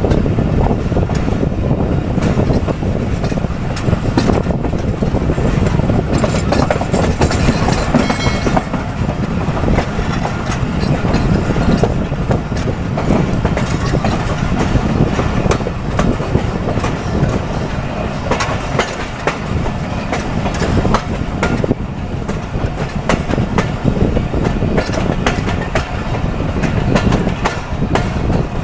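Passenger train running over the track: a steady rumble with frequent clicks and knocks as the wheels cross rail joints (clickety-clack). A brief high-pitched tone about eight seconds in.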